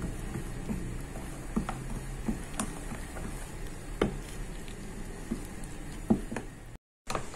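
Metal spoon stirring flour into milk in a glass bowl, with scattered irregular clinks of the spoon against the glass. The sound cuts out completely for a moment near the end.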